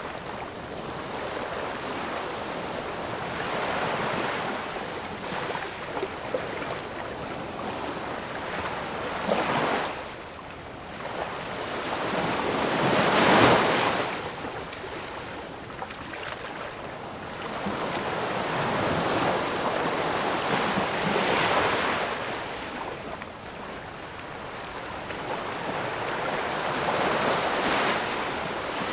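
Ocean waves breaking and washing on a shore, surging and receding every few seconds; the biggest wave crashes about halfway through.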